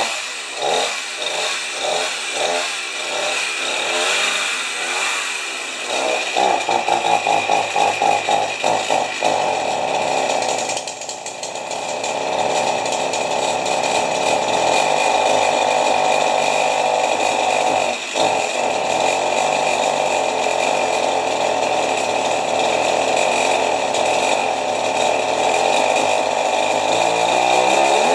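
Champion 40cc two-stroke chainsaw engine running, its throttle blipped over and over in quick rising-and-falling revs for the first several seconds, then held at steady high revs for the rest, falling off right at the end. The carburetor has just been re-tuned, with the idle screw backed right out and the low-speed screw at one and a half turns.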